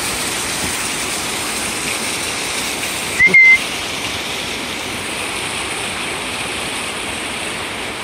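Small forest waterfall splashing over mossy rocks: a steady rush of water. About three seconds in, one short high whistle sounds briefly.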